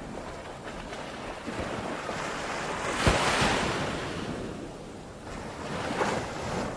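Ocean waves breaking on a beach, one wave crashing about three seconds in and another near the end, with wind on the microphone.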